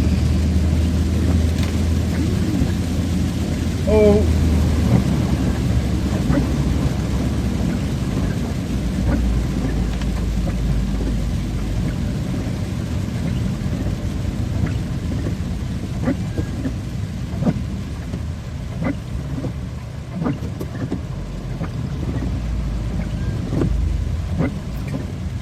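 Heavy rain pouring down steadily, with scattered sharp drop hits and a low rumble underneath.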